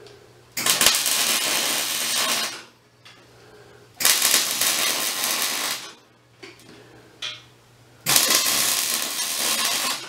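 Electric arc welding on a steel tube frame: three short welds of about two seconds each, the arc starting and stopping abruptly with quiet gaps between them.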